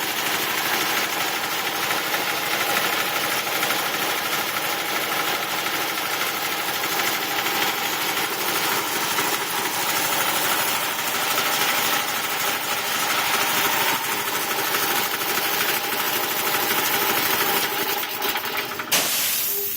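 Belt-driven Quincy air compressor running steadily under load, pumping its tank up toward the 165 psi cut-out, now working again after a blown 30 amp fuse was replaced. Near the end it cuts out with a short sharp sound and winds down.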